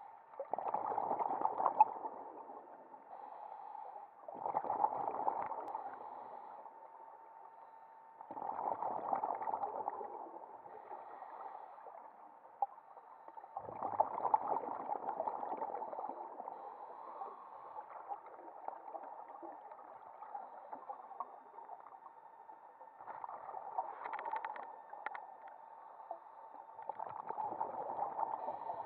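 Scuba diver's exhaled air bubbling out of the regulator, heard underwater: a burst of bubbles every four to five seconds, with one longer pause midway, and a faint steady whine underneath.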